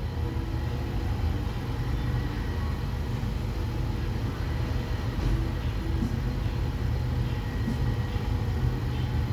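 2021 Nissan Sentra's 2.0-litre four-cylinder engine idling steadily while a scan-tool idle relearn runs.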